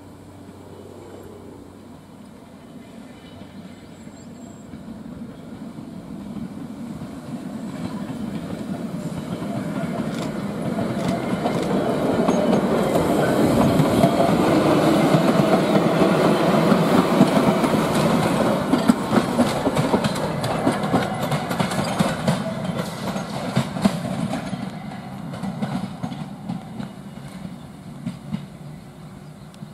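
A two-car vintage Chicago elevated electric train approaches, passes close by and draws away. Its rumble builds to a peak about halfway through, with the wheels clicking over the rail joints, then fades.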